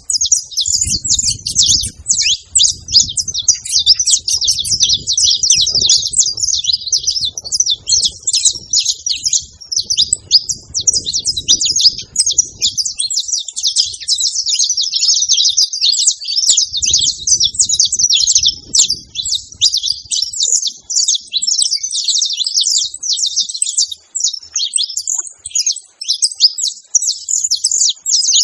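Several saffron finches chirping and singing together in a dense, unbroken chatter. A low rumble runs underneath for much of the first half and comes back briefly about two-thirds of the way through.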